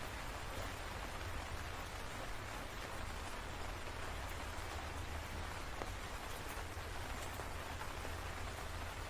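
Steady rain falling, an even hiss of drops with a low steady rumble underneath.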